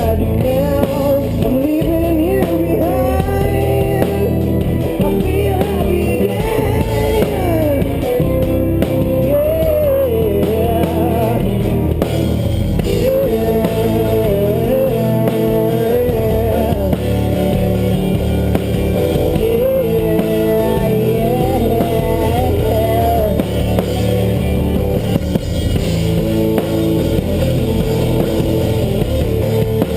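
Rock band playing: guitars, bass and drum kit, with a melodic line that glides and bends above them.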